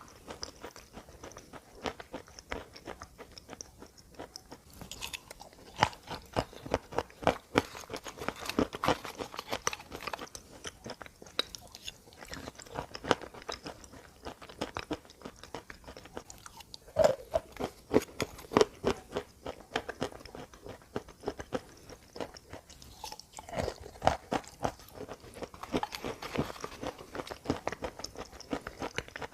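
A person biting and chewing crunchy edible mineral chunks close to the microphone: many sharp, brittle crunches coming in bursts, the loudest about a fifth, three fifths and five sixths of the way through.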